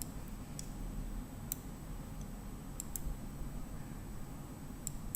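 Quiet room tone with a low hum, broken by about six faint, sharp clicks at irregular intervals.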